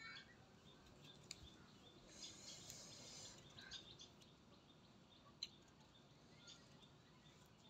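Near silence: faint bird chirps in the background, with a few light clicks, the clearest about a second and a half in and about five and a half seconds in.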